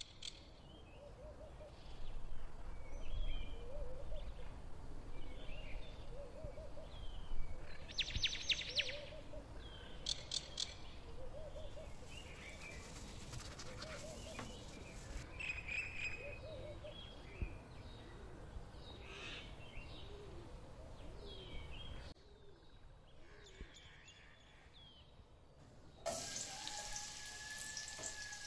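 Birds chirping over a low background hum, with some brief crinkling and rustling. Near the end, chopped garlic starts sizzling in hot oil in a wok.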